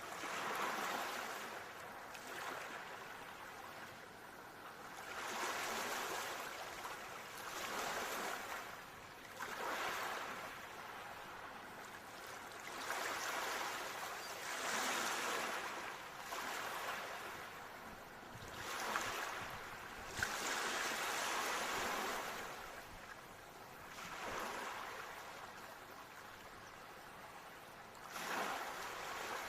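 Ocean surf: waves swelling and washing in, then falling back, every few seconds. Two short, sharp sounds stand out a little past the middle.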